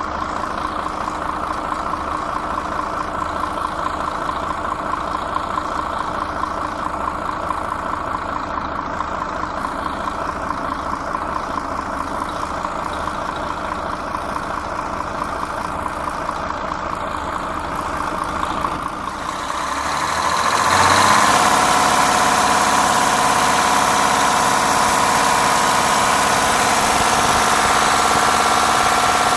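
Mercedes-Benz six-cylinder V diesel engine running at idle. About two-thirds of the way through it becomes louder and brighter, with a steady higher tone, and holds there.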